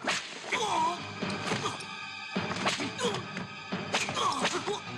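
Martial-arts film fight soundtrack: music under a series of sharp punch-and-kick impact hits, with short cries from the fighters about a second in and again near four seconds.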